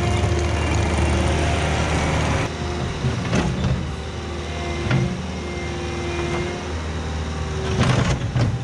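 Diesel engine of a compact loader running steadily while working. The engine note changes about two and a half seconds in, and a few clanks sound, the loudest cluster near the end.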